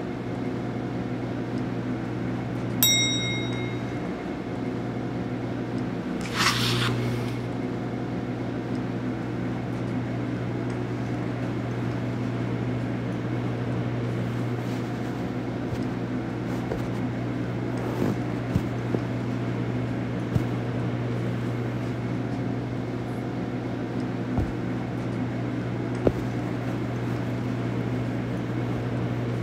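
Laundry-room machines giving a steady electrical hum. A single short electronic beep comes about three seconds in, a brief hiss follows a few seconds later, and a few light clicks come later on.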